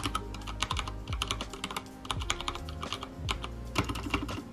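Fast, irregular typing on a Durgod Taurus K320 tenkeyless mechanical keyboard fitted with aftermarket keycaps: a dense run of key clicks.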